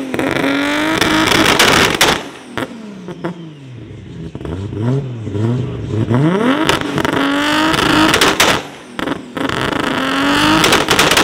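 Mk4 Toyota Supra's 2JZ straight-six revved hard while parked. There are three long revs that climb, hold near the top and drop back, with a few quick blips between them. Sharp exhaust pops and cracks come as the revs fall.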